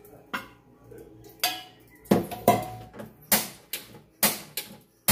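Metal wok spatula clanking against a stainless steel cup and the wok while excess cooking oil is scooped out: a string of about nine sharp metallic knocks with brief ringing, irregularly spaced and louder from about two seconds in.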